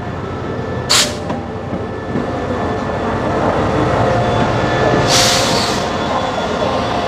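SRT QSY-class diesel-electric locomotive running with a steady engine hum as it draws its passenger coaches slowly past along the platform. Two short hisses of air come through, one about a second in and a longer one about five seconds in.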